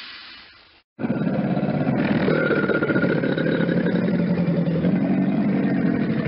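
A crocodile growling: a rough, rapidly pulsing low rumble that starts suddenly about a second in and carries on steadily, after the tail of an earlier sound fades to silence.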